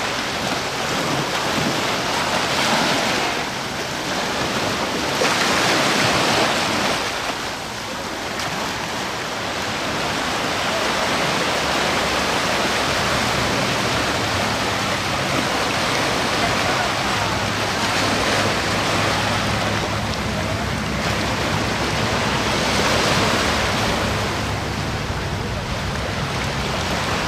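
Small ocean waves breaking and washing up the sand in the shallows, the surf swelling and easing several times, with wind rumbling on the microphone.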